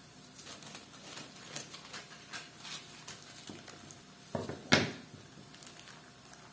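Kitchen scissors snipping through parchment paper between raw beef patties, with light paper rustling. A louder knock comes about two-thirds of the way through.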